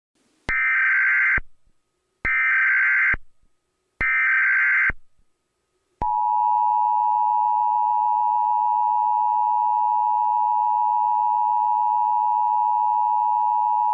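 Emergency Alert System header: three short bursts of warbling digital data tones, evenly spaced, then about six seconds in a steady, loud two-tone attention signal. Together they mark the start of a new emergency alert.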